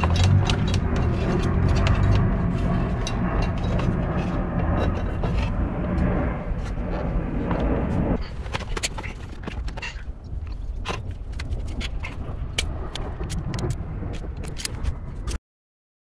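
Scraping and irregular clicking of wires and plastic dashboard trim being handled, over a low rumble that stops about halfway through. The sound cuts off abruptly to silence near the end.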